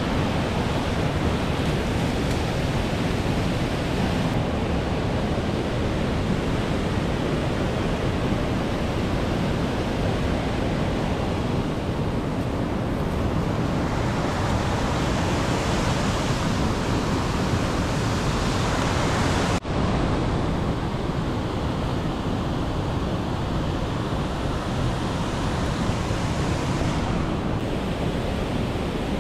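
Steady rushing of a waterfall and stream of white water, an even, unbroken noise of falling water. It breaks off for a moment about two-thirds of the way through.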